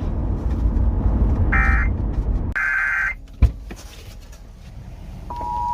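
Emergency Alert System broadcast audio. A loud rushing hiss is interrupted by two short buzzy digital data bursts, about a second and a half and two and a half seconds in. After a quieter gap and a single click, the steady two-tone EAS attention signal starts near the end.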